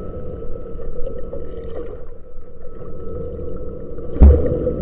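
Underwater sound with a steady mechanical hum held on two tones over low rumbling, and one loud thump about four seconds in.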